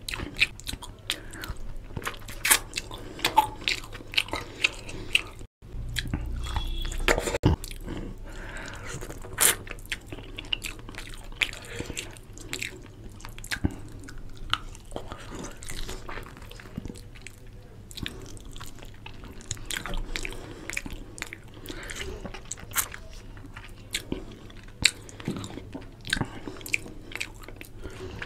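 Close-miked eating sounds of chicken curry and rice eaten by hand: chewing and lip smacking, with many short wet clicks throughout.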